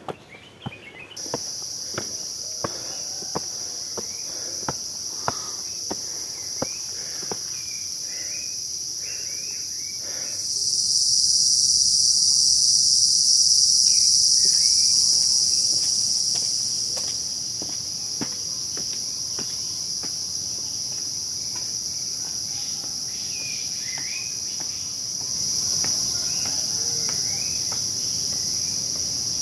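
A steady, high-pitched insect chorus starts about a second in and swells louder for several seconds in the middle. Scattered bird chirps sound beneath it, with regular light ticks like footsteps on a path early on.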